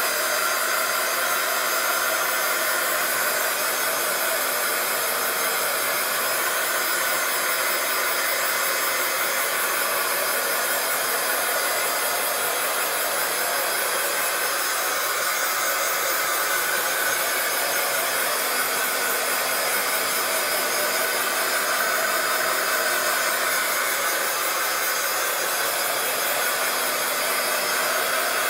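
Handheld craft heat gun running steadily, its fan blowing hot air to dry fresh paint, with a faint steady hum under the rush of air.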